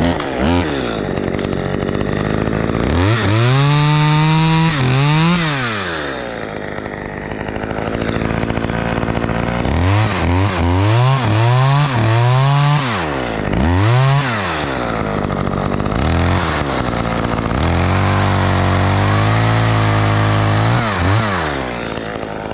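Husqvarna chainsaw revving up and down in repeated blips, then held at high revs for several seconds before dropping back, while it cuts a notch into the tree trunk.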